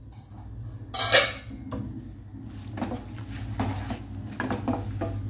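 Wooden spatula stirring and scraping a thick, frying rasam paste in a frying pan: one loud knock about a second in, then a run of short scrapes and knocks from about three seconds in.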